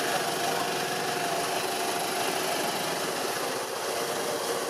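Steady engine hum, even and unbroken, with a few held tones running through it.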